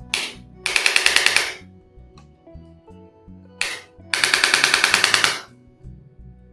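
A handheld percussive treatment device firing rapid runs of sharp impacts, about a dozen a second, twice, each run preceded by a short single burst, over soft background music.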